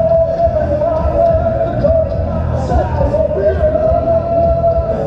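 Rock music with a singer, a long note held over a steady bass beat.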